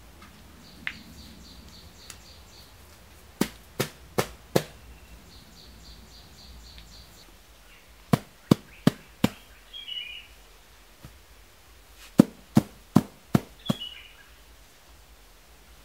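Sharp knocks struck by hand in three quick runs of four or five, about two or three strikes a second. A bird chirps briefly twice between them.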